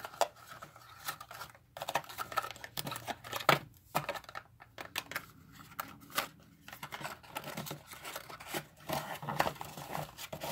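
Small paperboard box and its packaging being handled: irregular rustles, scrapes and light knocks, the sharpest knock about three and a half seconds in.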